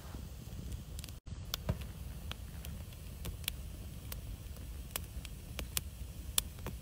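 Wood fire of split logs burning briskly, crackling with many scattered sharp pops over a steady low rumble.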